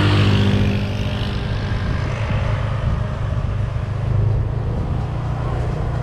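Steady low drone of a motor scooter's engine on the move, with road and wind noise, and another scooter passing at the start.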